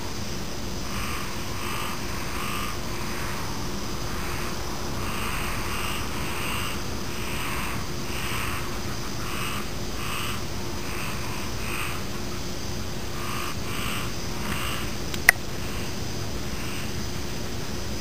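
Frogs calling in a run of short croaks, about one or two a second, over a steady high-pitched chirring of insects. A single sharp click sounds about fifteen seconds in.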